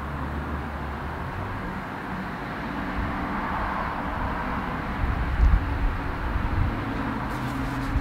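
Kubota BX23S compact tractor's three-cylinder diesel engine idling steadily, with a few low rumbles about five seconds in and some light clicks near the end.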